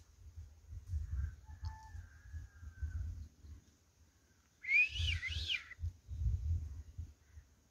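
Indian peafowl giving one short, loud call of two or three rising-and-falling notes about five seconds in. Low rumbling on the microphone comes and goes underneath.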